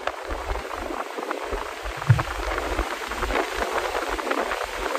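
Wind buffeting and crackling on the microphone, mixed with road noise in a moving car, with gusty rumbles coming and going and a brief louder thump about two seconds in. No clear engine note comes through.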